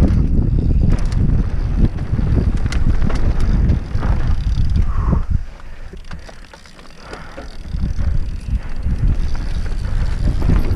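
Wind rushing over a helmet-mounted camera's microphone with the rattle of a downhill mountain bike and its tyres on a dirt trail. It drops quieter for a couple of seconds about halfway through as the bike slows through a corner, then picks up again.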